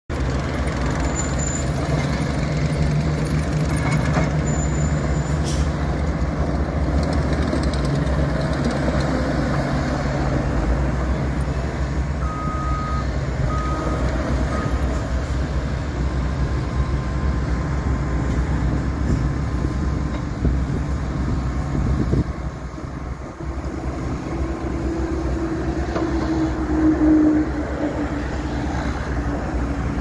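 Cat 247B compact track loader's diesel engine running steadily as the machine drives and turns on its rubber tracks, with a few short beeps near the middle. The engine dips briefly, then a whine builds near the end as the hydraulics raise the loader arms and bucket.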